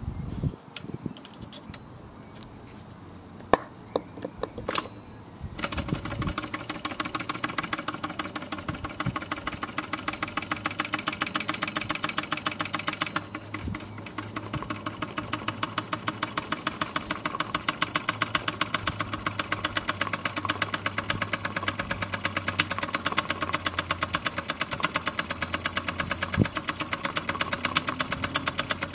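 Kenneth Wells miniature live-steam traction engine, a new engine still tight and being run in. After a few clicks and knocks it starts about five seconds in, then runs steadily with a rapid, even exhaust beat.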